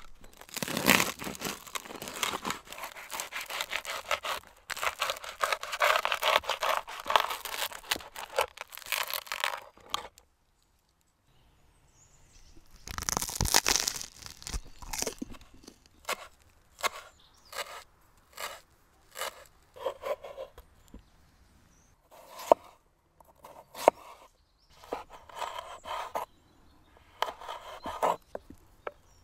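Knife cutting food on a wooden cutting board. First a long stretch of crackling crunch as it saws through crusty bread. Then, after a short pause, a series of separate cuts, each knocking on the board, as tomatoes are sliced.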